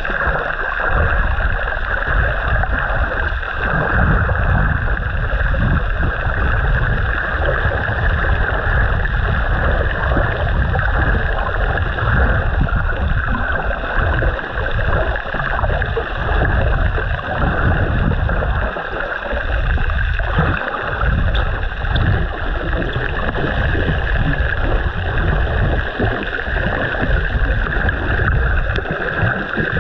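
Continuous rushing, gurgling water noise picked up by a camera held underwater while snorkeling, heavy at the low end.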